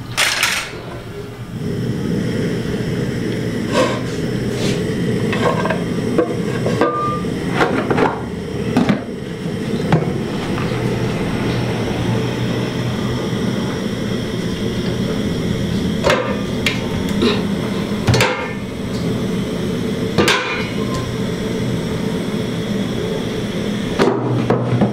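A gas stove burner is lit with a lighter at the start, then burns with a steady low rush, under scattered knocks and clatter of kitchen utensils.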